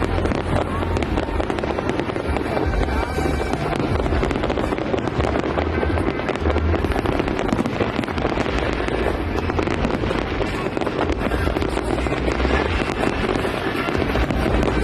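Fireworks display going off in a dense, continuous barrage of bangs and crackles, with no let-up, and music playing alongside.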